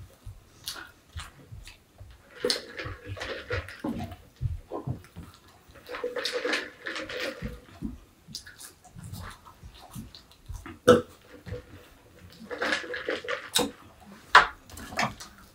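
Mouth noises of a boy speed-eating chicken nuggets: chewing with a full mouth and small clicks. Three longer muffled vocal noises, each about a second or so, come through the food at about two and a half, six and twelve and a half seconds in.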